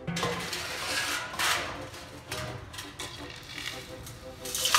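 Dry soil and gravel pouring and sliding between a riffle-splitter pan and stainless steel bowls, a gritty rattling rush against metal. It is loudest about a second and a half in and again near the end.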